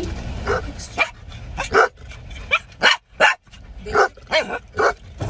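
A dog barking repeatedly inside a car: a quick run of short, sharp barks with brief gaps, some of them bending up and down in pitch.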